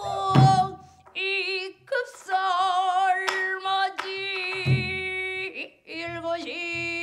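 Female pansori singer holding long sung notes with a slow, wide vibrato, accompanied by a few low strokes of the buk barrel drum, the loudest just after the start and another about two-thirds through.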